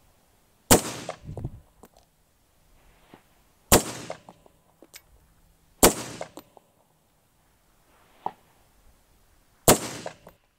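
Four rifle shots from an LMT AR-15 chambered in .224 Valkyrie with a 20-inch barrel, each a sharp crack with an echo trailing off after it. The shots come at an uneven pace, two to four seconds apart.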